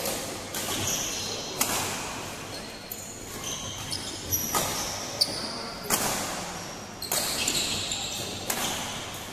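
Badminton rackets striking a shuttlecock in a rally: about seven sharp smacks, roughly one every second and a half, echoing in a large hall. Short high-pitched squeaks of court shoes on the floor come between the hits.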